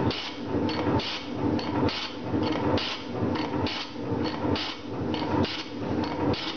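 Metal shaper running at about one stroke a second, its round-nose tool planing the cast-iron bottom face of a drill press vise flat. Each stroke brings a bright scraping burst, with lighter clicks between, repeating evenly.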